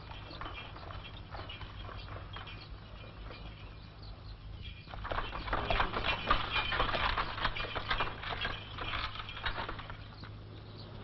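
Horse hooves clopping with the clatter of a cart, faint at first, then much louder from about halfway through and easing off near the end.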